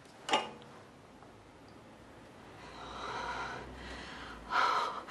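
A short sharp click about a third of a second in, then a faint hiss and a person's sharp breath near the end.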